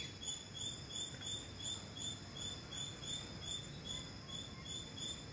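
Steady, evenly spaced high chirping from a cricket, about three to four chirps a second, over low background noise.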